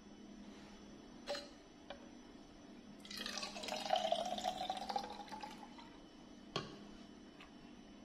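Orange juice poured from a plastic juicer jug into a baby bottle: a splashing, filling sound that starts about three seconds in and lasts a couple of seconds. A light knock comes shortly before the pour and another after it.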